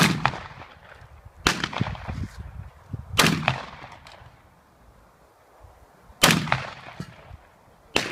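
Shotgun fired five times, the shots about one and a half to three seconds apart, the last near the end, each with a short echo. Fainter knocks follow some of the shots.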